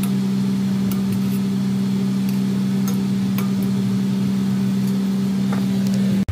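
A steady electric motor hum with a fixed pitch, with a faint sizzle of frying oil and a few small pops under it.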